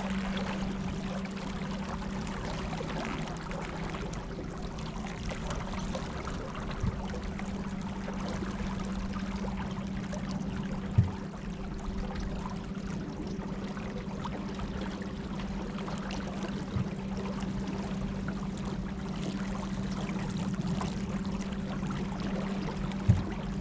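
Battery-powered electric boat motor humming at a steady pitch while water splashes and trickles around the hull, with two light knocks.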